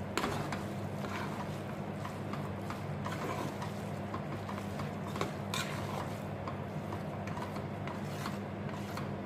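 A fork, and later a wooden spatula, stirring and scraping thick, cheesy risoni pasta against the side of a metal pot, with a few sharper scrapes or clinks against the metal. A steady low hum runs underneath.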